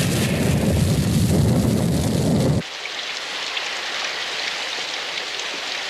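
A loud rumble with a heavy low end cuts off abruptly about two and a half seconds in, leaving a steady hiss of rain.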